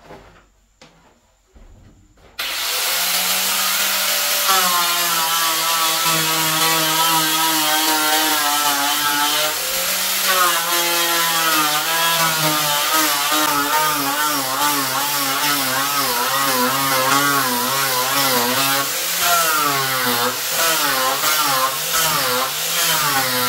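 Electric angle grinder with a sanding disc sanding wooden wall planks. It starts about two seconds in and runs continuously, its motor pitch wavering up and down as the pressure on the wood changes.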